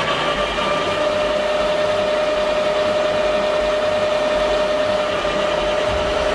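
Road-repair machinery running steadily at high speed, with a loud, steady mechanical whine.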